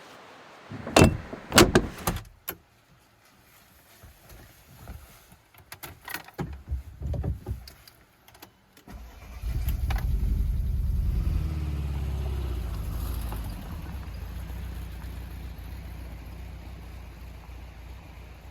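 A few sharp thumps and some lighter knocks. About nine seconds in, a Volkswagen Vanagon's engine starts and settles into a steady idle.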